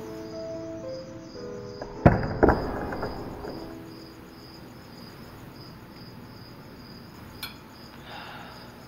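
A Barbie doll topples over onto a tabletop: two knocks about half a second apart, about two seconds in, and the background music stops with them. Crickets chirp steadily throughout.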